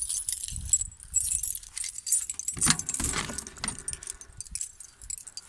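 A bunch of keys jangling and clinking as they are handled, with a louder knock about two and a half seconds in.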